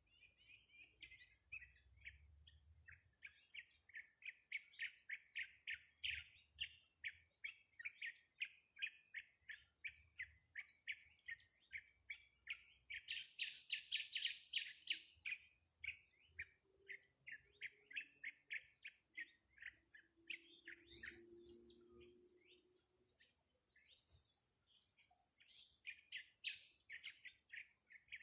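A small bird chirping: a long run of short, fast repeated chirp notes, about two to three a second, with one sharper, higher call about two-thirds of the way through.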